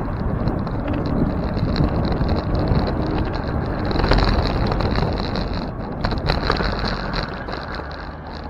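Wind rushing over the microphone of a bicycle-mounted camera, with a steady rumble of road noise as the bike rolls along. It grows quieter over the last couple of seconds as the bike slows through the turn.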